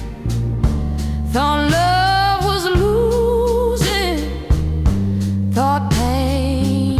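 Slow soul-blues ballad: a voice sings a long phrase that bends and wavers in pitch, a second phrase starting near the end, over a steady bass line and drums.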